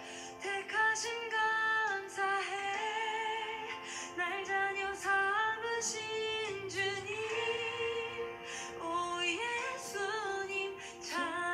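Recorded Korean worship song playing through a passage without sung lyrics: a high melody line of held, gliding notes over a sustained accompaniment.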